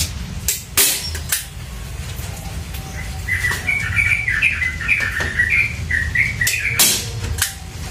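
Hand-held manual staple gun firing staples into a wooden door frame: sharp metallic clacks, three in the first second and a half and two more near the end. In between, a small bird chirps a quick run of high twittering notes.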